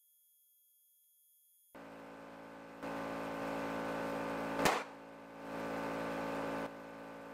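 Benjamin ReCharge high-pressure PCP air compressor running steadily while filling a scuba tank, with a single sharp loud pop about four and a half seconds in as the high-pressure fill hose bursts a hole.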